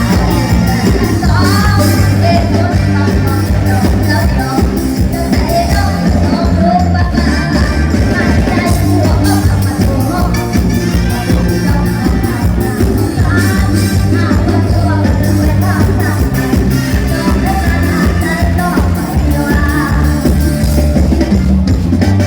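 Live music blasting from a Thai rot hae parade sound truck: a singer over heavy bass and a steady drum beat, played loud through the truck's PA.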